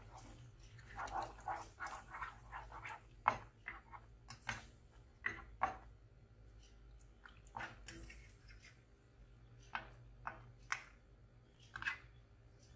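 Spatula stirring thick coconut milk and curry paste in a saucepan: irregular wet squelches and light scrapes against the pan, busiest in the first half.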